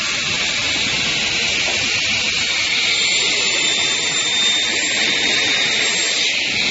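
A 455CNC automatic circular saw for aluminium billets running: a steady, even rushing hiss with a faint thin whine about halfway through.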